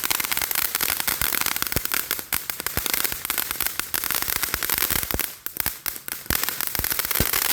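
Firework crackling: a rapid, continuous stream of sharp cracks and pops with hiss, going on without a break.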